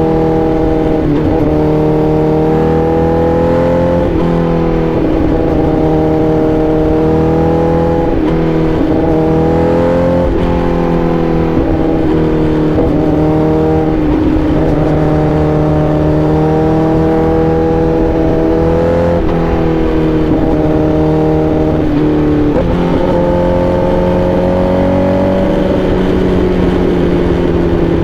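Honda CBR1000RR-R SP's inline-four engine running under way, its note climbing and dipping several times, then easing down gradually near the end.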